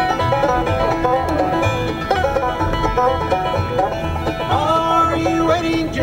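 Bluegrass band recording in an instrumental passage, banjo picking to the fore over a steady bass pulse.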